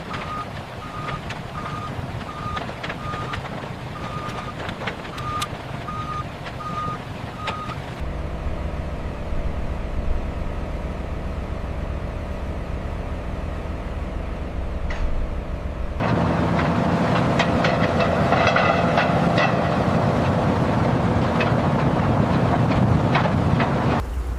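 Construction machinery: a heavy vehicle's reversing alarm beeps about once a second over its running engine. About a third of the way in it gives way to a steady engine hum. Near the two-thirds mark that changes abruptly to louder machinery running with frequent metallic clanks.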